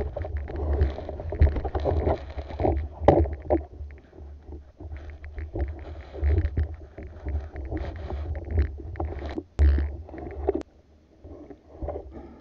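Muffled underwater noise heard through a camera's waterproof housing: a steady low rumble of water moving past, with irregular knocks and scrapes as a wooden band-powered speargun's rubber bands are pulled and loaded by gloved hands.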